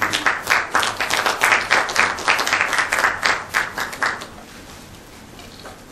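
Audience applauding with a short round of clapping that dies away about four seconds in.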